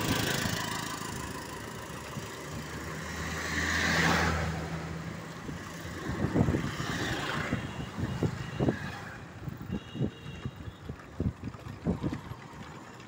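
Road traffic heard from a moving vehicle: a motor vehicle's engine swells past close by, loudest about four seconds in, followed by a scatter of short knocks and thumps.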